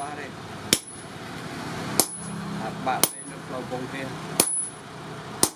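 Blacksmith's hammer striking a steel file held in tongs on an anvil while forging it: five spaced blows about a second apart, each with a short high metallic ring.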